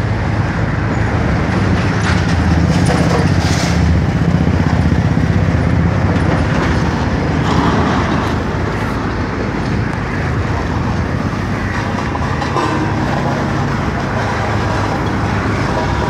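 Case tandem road roller's diesel engine running steadily as the roller drives off along the road, a little quieter after the first few seconds.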